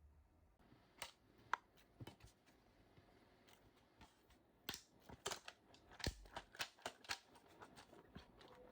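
Scattered light clicks and rattles of hard plastic being handled, likely the freshly 3D-printed articulated flexi axolotl. The clicks are sparse at first and come in a quicker run around the middle.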